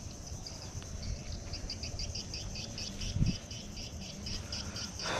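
Insects chirping in a fast, even pulse of about five chirps a second over a steady high insect whine, with a single soft thump about three seconds in.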